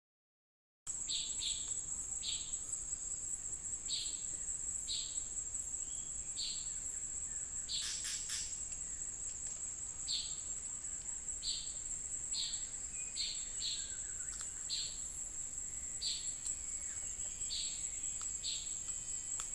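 Forest insect, such as a cricket, trilling on one steady high pitch, with short higher chirps repeating about once a second over it. A brief clatter of clicks about eight seconds in.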